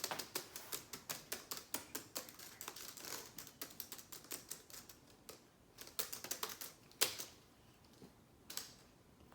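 Keys tapped on an HP Chromebook laptop keyboard: a run of quick taps, about four or five a second, that thins out to a few scattered taps in the second half.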